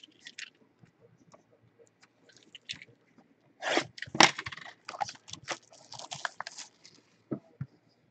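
Packaging crinkling and tearing as a sealed trading-card box is opened by hand. One louder rip with a sharp crack comes about four seconds in, then a run of quick crinkles.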